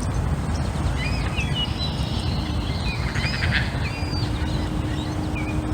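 Birds calling by the water: many short chirps and whistles, with a buzzy rattling call a little past the middle, over a steady low rumble. A faint steady hum comes in about four seconds in.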